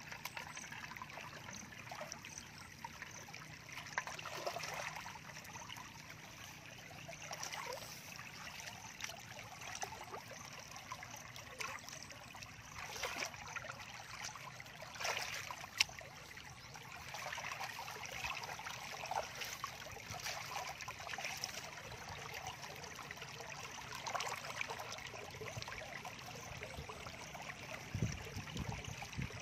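Shallow muddy water trickling and running steadily, with a few brief splashes from hands and feet moving through it.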